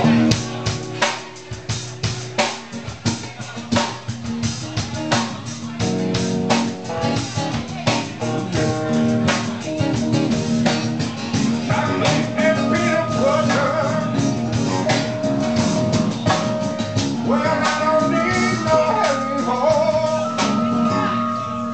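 Live rock band playing amplified electric guitar over a drum kit, with steady drum hits under held chords. A higher, wavering melodic line comes in about halfway through.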